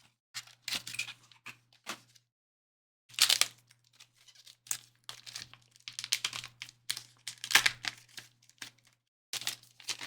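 Packaging being torn open and crinkled by hand: a run of short, irregular tearing and rustling noises, with a brief pause about two seconds in.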